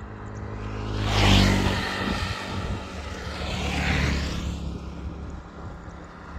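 Motor vehicles passing by: two swells of engine and road noise, the first peaking about a second in and the second around four seconds in, each rising and then fading away.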